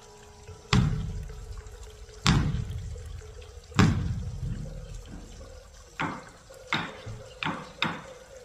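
Beopgo, the large Buddhist temple dharma drum, struck with sticks. Three heavy, booming beats come about a second and a half apart, then four quicker, lighter beats near the end.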